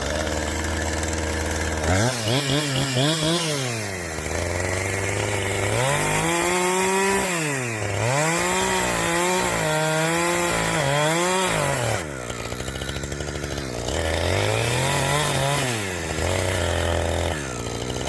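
Chainsaw engine idling and being revved, about six times, each throttle burst rising in pitch and falling back to idle.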